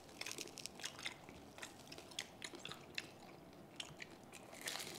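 Chewing and biting crispy lechon kawali (deep-fried pork belly): scattered crackly crunches of the fried skin, with a denser, louder crunching near the end.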